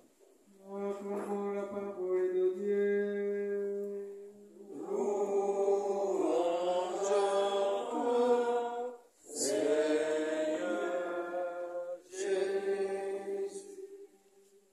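Sung acclamation after the Gospel reading at Mass: one voice chants a phrase on a nearly steady held note, then fuller singing from several voices answers in three more phrases.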